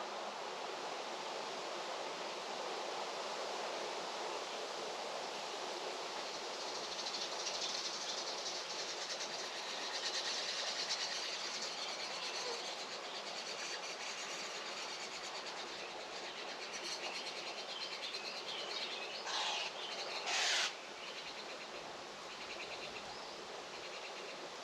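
Steady outdoor rural ambience: an even hiss that swells in the middle, with birds chirping. Two short, loud sounds come about 19 and 20 seconds in.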